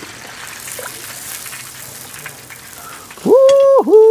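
Hot oil sizzling steadily as chicken wings deep-fry. Near the end come two loud held hooting tones, the second a little lower than the first, each gliding up at its start and down at its end.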